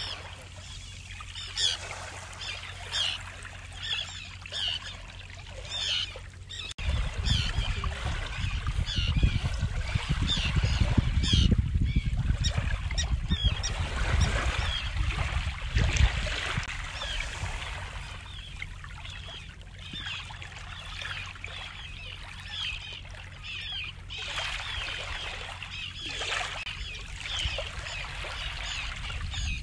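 Small waves lapping and washing over a pebbly sand beach, with short fizzing splashes as each one breaks and runs back. For several seconds in the middle, from about seven seconds in, wind rumbles on the microphone.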